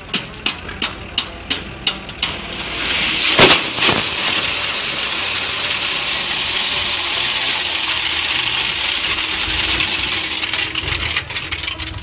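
The chain on a tipping tractor-trolley's tailgate clanks as it is unhooked: a run of sharp metallic clinks in the first two seconds. Then the load of crushed stone pours out with a heavy thud and a loud, steady rushing hiss that tails off near the end, with an engine running underneath.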